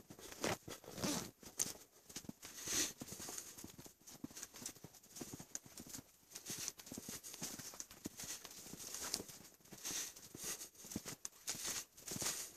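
Footsteps crunching through shallow snow while walking, an irregular run of short crunches.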